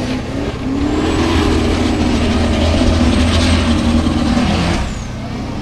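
Formula Offroad buggy's engine at high revs while it climbs a steep dirt hill with its wheels spinning and throwing dirt. The engine note rises slightly and holds for about four seconds, then drops off near the end.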